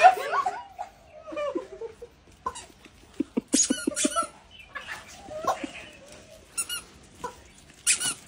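Rubber screaming chicken toy squeezed again and again, giving short squeaky squawks that bend in pitch, with a quick run of clicks about three seconds in.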